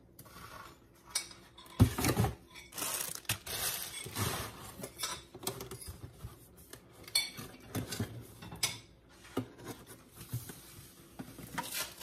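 Handling of the grinder's cardboard box and packaging on a kitchen counter: irregular knocks, scrapes and rustles, the loudest knock about two seconds in.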